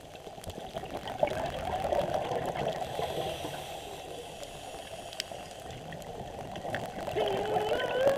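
Underwater sound picked up by a scuba diver's camera: gurgling water from the diver's exhaled regulator bubbles, swelling and easing, with scattered faint clicks. Near the end a pitched music line fades in.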